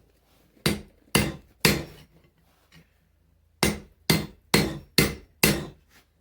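Blacksmith's hand hammer striking hot mild steel on the anvil while squaring up a forged axe eye: three blows about half a second apart, a pause of about two seconds, then five more at the same pace.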